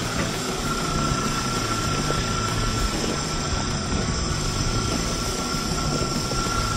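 Traxxas TRX-4 crawler's sensored brushless motor (Hobbywing QuicRun Fusion) and geared drivetrain whining at a high, near-steady pitch as it drives, over a continuous rushing noise.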